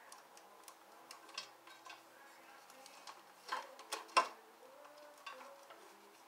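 Metal clinks and clicks of hand tools and parts being handled on a motorcycle during hands-on work. The clinks are scattered and irregular, and the loudest cluster comes about three and a half to four seconds in.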